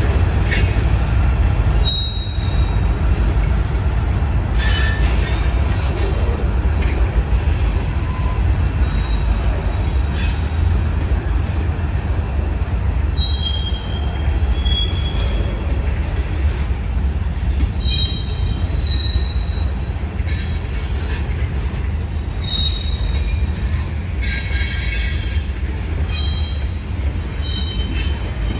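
Freight train cars rolling past at slow speed with a steady low rumble, their steel wheels squealing briefly in short high-pitched tones every few seconds.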